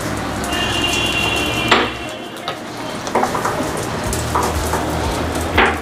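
Oil heating in a wok over a lit gas burner: a steady hiss, with three sharp knocks spread through it.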